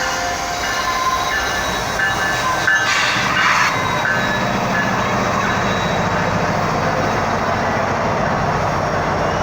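Freight train rolling through a rail yard. Its wheels squeal in thin, high steady tones during the first two or three seconds, with a short burst of noise about three seconds in. After that comes a steady rumble of wheels and a low diesel engine hum.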